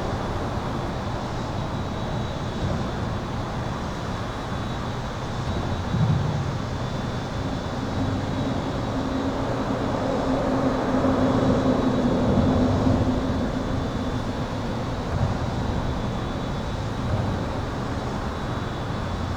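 Highway traffic heard from under an overpass: a steady wash of tyre and engine noise, with a steady high buzz over it. A louder vehicle passes in the middle, swelling and fading with a low drone, and there is a short bump about six seconds in.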